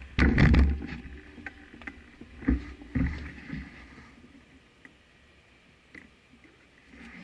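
A low, rumbling rattle of bumps and knocks on a moving action camera: a loud burst at the start, then a few single knocks and thuds, fading to a low hiss in the second half.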